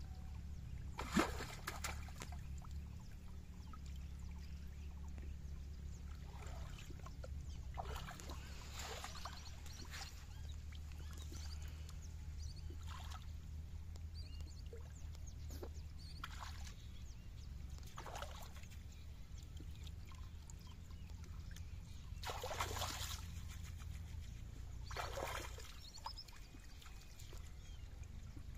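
Water splashing and trickling in short swishes as a wet cast net is lifted and gathered in shallow river water, with a sharp knock about a second in, over a steady low rumble.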